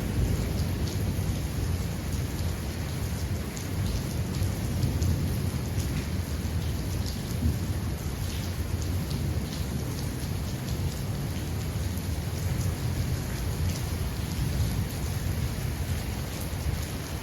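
Steady heavy rainfall, with many separate drops ticking on surfaces, over a continuous low rumble of thunder.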